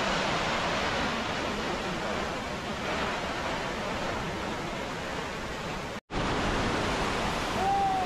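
Steady rushing of water from an 80- to 100-foot waterfall crashing down a cliff, an even roar of noise. It cuts out for a moment about six seconds in.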